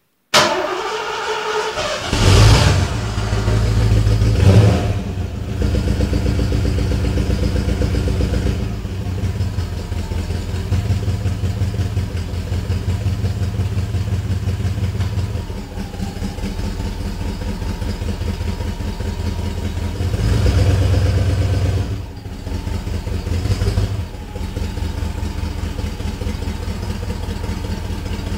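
1985 Ford Mustang GT's 5.0 V8, on its stock exhaust, starting cold after two months of standing. It cranks briefly and catches, flares up loudly twice in the first few seconds, then settles into a steady idle with an even exhaust pulse. Its revs rise for a couple of seconds about twenty seconds in, with a shorter rise soon after.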